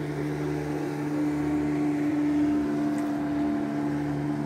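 Speedboat engine running with a steady drone that swells a little around the middle.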